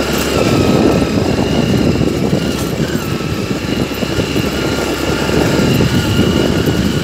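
Motorcycle engine running steadily at low speed while riding a wet dirt road, with a thin steady whine above the engine sound.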